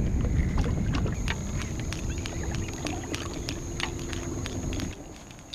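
Wind buffeting the microphone, overlaid by a quick, irregular run of sharp light clicks from the fishing tackle as a topwater walking lure is retrieved on a spinning rod and reel. The wind noise drops away abruptly near the end.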